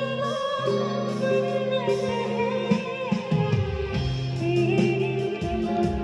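Live band playing through PA speakers: a woman singing a slow song over sustained keyboard chords and electric guitar, with a light ticking beat.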